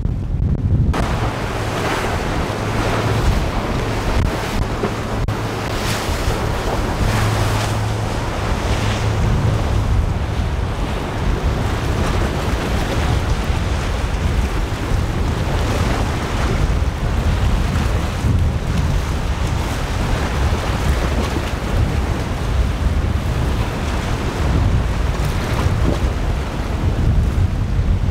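Wind blowing on the microphone over rough surf and breaking waves, with a boat's outboard engines running beneath as it crosses the choppy water.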